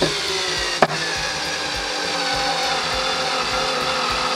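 ES EK636S 3.6 V cordless screwdriver running steadily under load as it slowly drives a screw into a wooden board, with its motor and gearbox whining at an even pitch; a sharp click about a second in. It is a low-powered tool turning only about 200 rpm.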